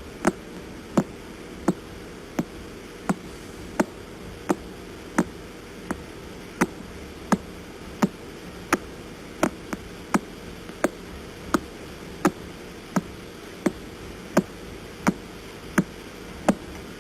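Pulsar's radio pulses, recorded by a radio telescope and played as sound: sharp, evenly spaced clicks about every 0.7 seconds, like knocking on a door, over a steady static hiss.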